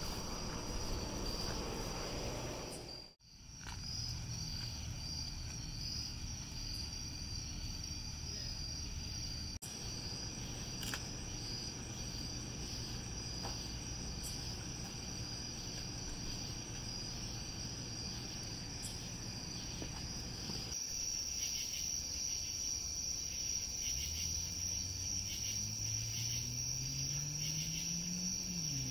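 A steady chorus of night insects chirping, a high, slightly pulsing trill. Near the end a low hum comes in and rises in pitch.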